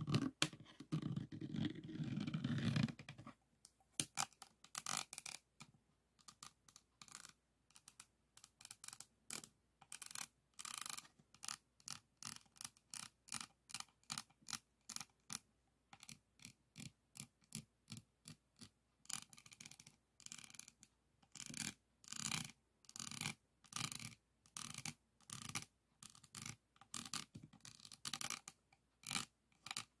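Plastic diamond-painting pen scraping over the faceted resin drills of a finished diamond painting. It starts as a continuous rubbing scrape for about three seconds, then turns into short scratchy strokes at about two a second.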